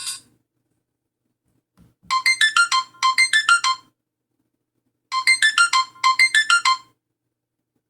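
Alcatel 3025 mobile phone playing one of its built-in alert tones through its small speaker: a quick run of electronic beeps played twice back to back, then after a short pause the same pair again, as the tone repeats.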